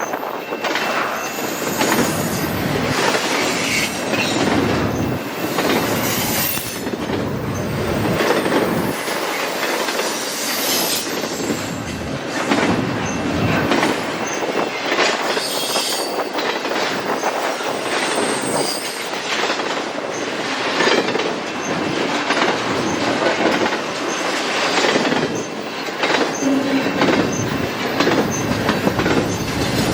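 Freight train cars rolling past on jointed track, with steady wheel clatter and the occasional high wheel squeal.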